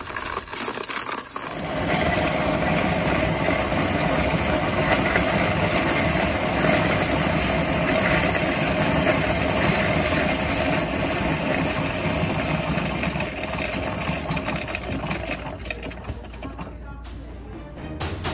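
Bank coin-deposit machine counting 50p coins: coins clattering through the mechanism over a steady mechanical whirr, after a few clinks as the coins are pushed into the tray. The run winds down about sixteen seconds in.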